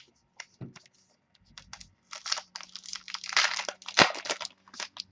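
Baseball card packs and cards being handled: scattered light clicks, then a dense run of crinkling and tearing about two seconds in, with one sharp snap near four seconds.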